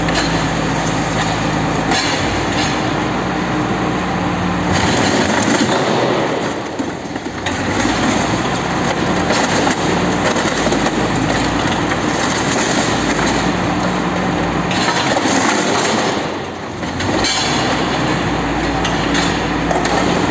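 Refrigerator disposal machinery running loudly and continuously, a dense grinding noise with a steady low hum under it that dips briefly twice.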